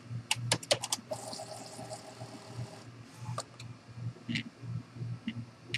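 Epson XP-series inkjet printer's carriage motor running for about two seconds, moving the print-head carriage with its continuous-ink cartridges to the cartridge-replacement position after the lid sensor was tripped. A few sharp clicks come before and after.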